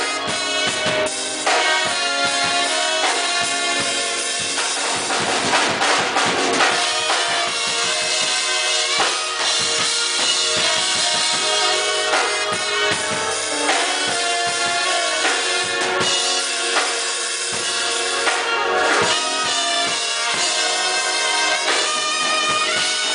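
Music with a drum kit, bass drum and snare playing a steady beat under several pitched instruments.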